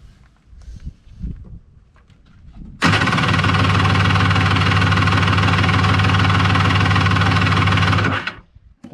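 Kawasaki 1100 two-stroke triple jet ski engine cranked on its electric starter for about five seconds, starting abruptly and stopping as the button is released. This is the cranking done to read the CDI's coil output voltage.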